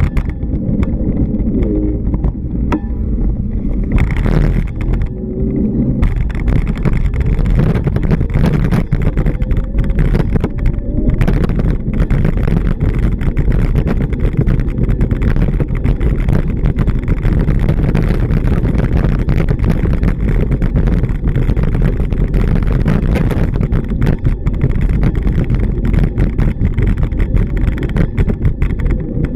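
Road traffic: cars driving past on a busy street, a steady wash of engine and tyre noise with engine notes rising and falling as vehicles pass.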